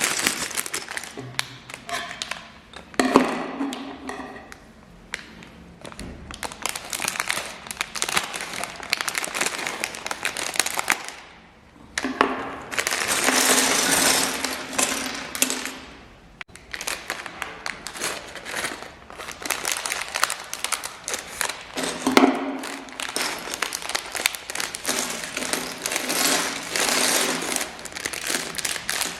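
Small plastic LEGO pieces clicking and clattering against each other, with plastic parts bags crinkling in longer stretches midway and again near the end.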